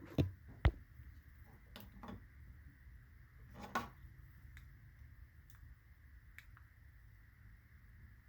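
A few sharp knocks and clicks: two loud ones within the first second, weaker ones around two and four seconds in, then only faint ticks over a low steady hum.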